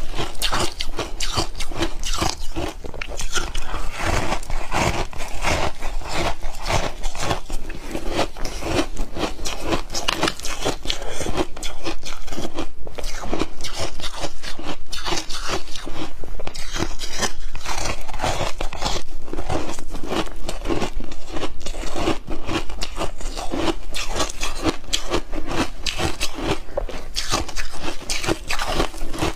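Close-miked crunching and chewing of ice: a dense, steady run of sharp cracks as the ice breaks between the teeth.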